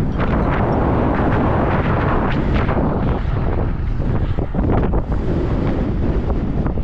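Loud wind buffeting the microphone of a camera on a moving bicycle, a dense rushing noise that gusts unevenly.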